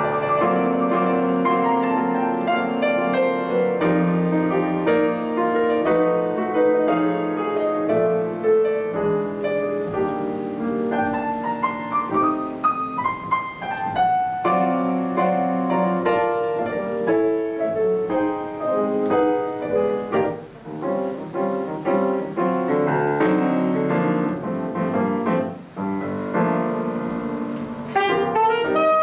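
Grand piano playing a solo passage, with running figures and a rising run midway. Near the end an alto saxophone comes in with a held note.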